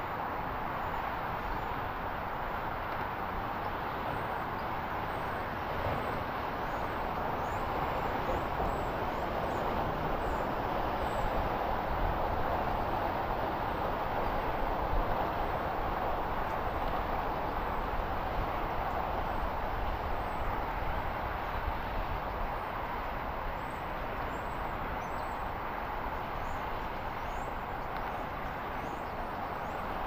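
Steady outdoor background rush, like distant traffic or moving water, with faint, high-pitched chirps of small birds scattered through it.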